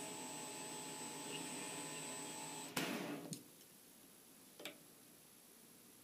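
WEISAN WM210 benchtop metal lathe running with a steady hum and a high whine, then switched off with a click about three seconds in as the spindle stops. A single faint click follows a couple of seconds later.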